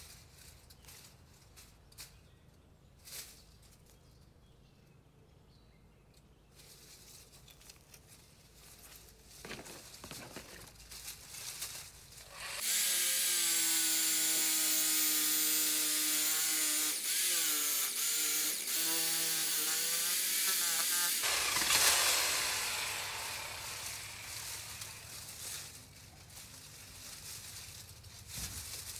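A power saw cutting through beech branches. About 13 seconds in its motor whines loudly for about eight seconds, the pitch wavering under load. Then comes a loud rush of noise that fades over several seconds.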